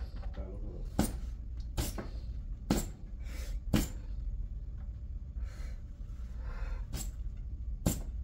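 Six sharp taps at uneven intervals, over a low steady hum.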